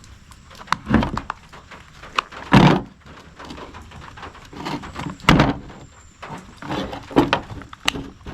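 Clicks and knocks of plastic parts being handled and fitted back together on a Stihl FS45C line trimmer, with two heavier thumps about two and a half and five seconds in.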